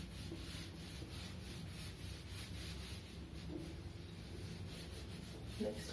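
A whiteboard duster rubbing across a whiteboard, wiping off marker writing, faint over a steady low hum.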